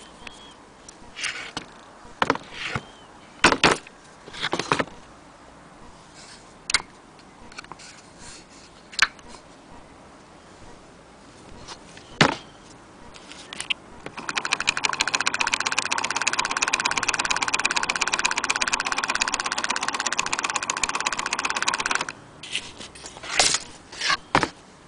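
Small vintage sewing machine handled with scattered metal clicks and knocks, then running at a fast, even stitching rhythm for about eight seconds before stopping, followed by a few more clicks.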